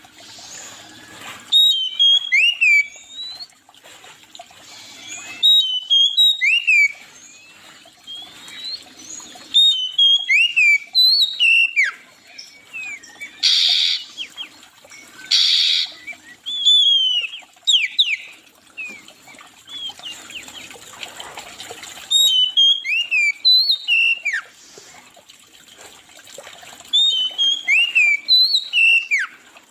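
A songbird singing short phrases of quick, swooping whistled notes, a new phrase every few seconds. Two brief harsh, rasping bursts come around the middle.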